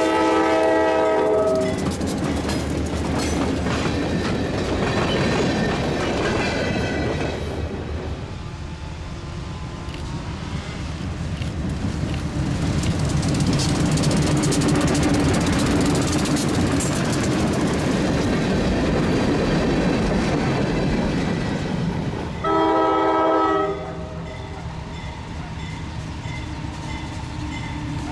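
Diesel freight locomotive horn blowing a chord at the start, then a steady rumble from the train through the middle. A short horn blast comes about three-quarters of the way through, and the horn sounds again at the very end.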